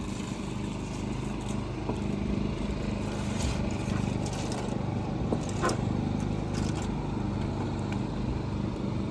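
A steady engine hum, with a few light clicks and knocks over it.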